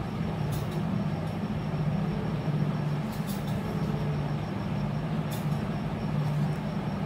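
A steady low mechanical hum over a noisy background, with a few faint high clicks.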